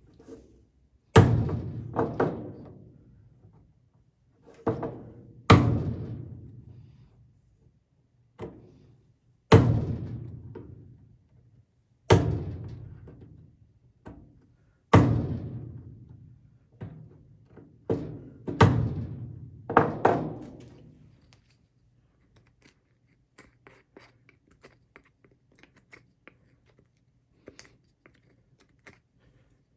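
A chisel struck hard about a dozen times, one to three seconds apart, each blow a sharp thunk that rings on briefly, as it chops a hole to fit a nut into a knob blank. Near the end the blows stop and only light scraping ticks remain.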